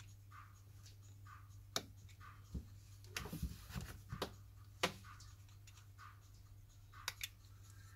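Faint clicks and scraping of an opening tool against the edge of a Samsung Galaxy A3 as it is worked at the glued-down screen to pry it open, a few sharp clicks spread over several seconds, over a low steady hum.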